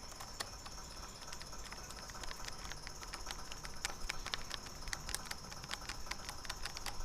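Small screwdriver driving screws back into a mini PC's case: light, irregular clicks and ticks of metal on the screws and plastic, coming more often after about three seconds.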